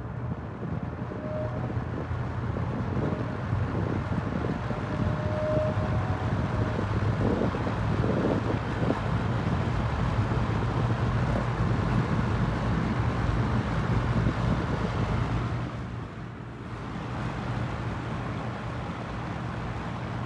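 Vintage Lakewood 12-inch box fan, model S-122, running on its low speed: a steady motor hum under the rush of air from the blades. The sound grows louder over the first several seconds, with a faint thin whistle early on.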